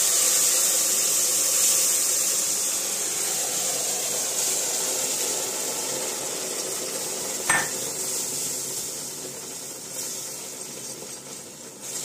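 Hot sugar syrup being poured into a pot of roasted flour for halva, sizzling while a whisk stirs the mixture in the steel pot. The hiss slowly fades, with a single metal clink about seven and a half seconds in.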